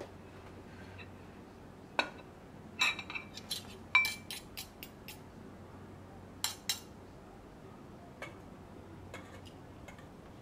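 Cutlery and dishes clinking: a scatter of sharp clinks through the middle of the stretch, one of them ringing briefly.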